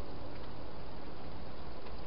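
Steady hiss of the camera's microphone, with a few faint clicks of a hedgehog chewing food from a bowl.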